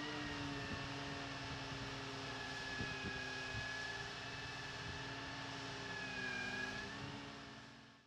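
Geoprobe 3100GT drill rig's engine and hydraulics running steadily while its control levers are worked, with a whining tone that dips briefly about six seconds in. The sound fades out near the end.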